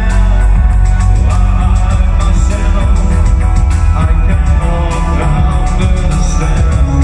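Live electronic synthpop band playing loudly through a club PA: layered synthesizers over a heavy, steady bass.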